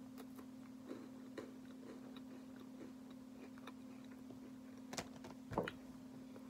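Chewing a bite of a Kit Kat wafer bar: a run of faint crisp crunches, with two louder crunches about five seconds in as the bar goes back to the mouth, over a steady low hum.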